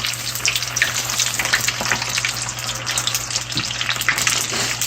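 Breaded chicken wings deep-frying in very hot oil: a steady, busy sizzle crowded with small pops and crackles.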